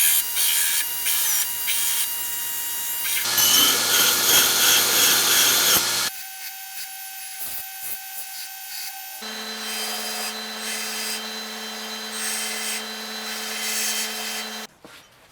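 Power grinding on steel: a motor's steady whine over a hiss of abrasive on metal. It comes in several short segments, each at a different pitch, switching abruptly about three, six and nine seconds in, and drops away shortly before the end.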